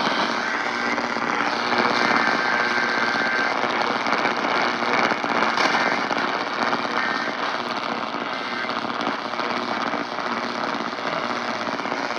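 Weather radio receiver hissing and crackling with static on weak reception, a faint steady tone showing through the noise for the first few seconds.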